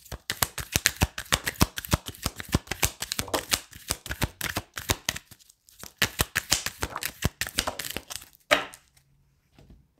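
A deck of tarot cards being shuffled by hand: a quick run of soft clicks and slaps as the cards are pulled through, pausing briefly about halfway and stopping near the end.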